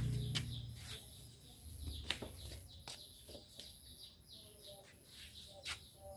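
Small birds chirping repeatedly in short, sharp notes. In the first second a low, drawn-out cow moo fades out. A faint, steady high-pitched whine runs underneath.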